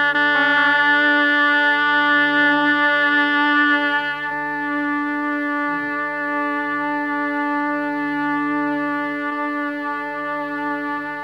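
Shehnai holding one long steady note over a drone, a little softer after about four seconds.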